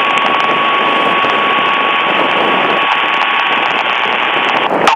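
Handheld two-way radio hissing loudly with open-squelch static and a thin steady whistle tone through it. It breaks off with a click near the end.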